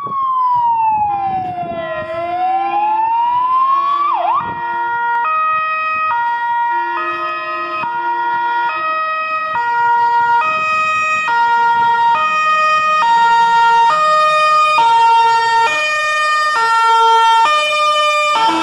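MAN GCBA 6/40 fire engine's siren sounding as the truck approaches. It starts with a slow wail that sweeps down and back up, then switches to a two-tone hi-lo pattern, changing pitch a little more than once a second. It gets louder toward the end as the truck draws near.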